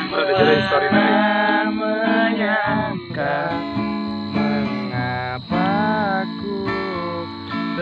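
Steel-string acoustic guitar strummed in chords, with a man's voice singing along over it.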